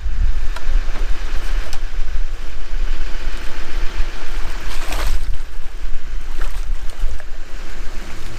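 Wind buffeting the microphone: a heavy, uneven low rumble, with a brief rush of noise about five seconds in.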